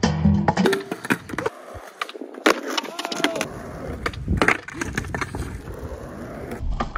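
Skateboard popping, landing and clattering on concrete during flatground trick attempts: a string of sharp wooden clacks and knocks, with wheels rolling between them.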